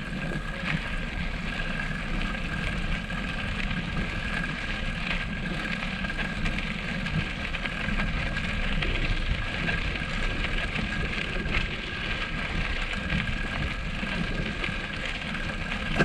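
Bicycle riding over a rough sandy, stony track: steady crunching and rattling of tyres and frame, with wind buffeting the microphone.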